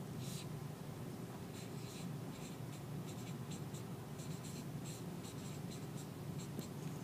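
Stylus tapping and scratching on a tablet screen as an equation is handwritten: a string of short, irregular ticks, one just after the start and then many from about a second and a half in, over a steady low hum.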